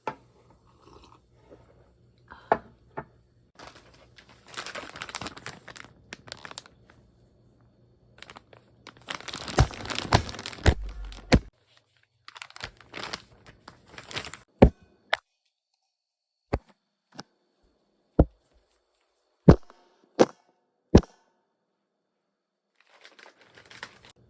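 Packaging crinkling and tearing in two stretches, followed by a string of about eight sharp taps spaced roughly a second apart.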